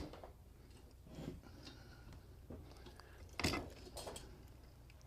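Faint handling of a stiff metal locking pin being worked out of a machine gun's feed-chute adapter: a few scattered clicks and knocks, the sharpest about three and a half seconds in.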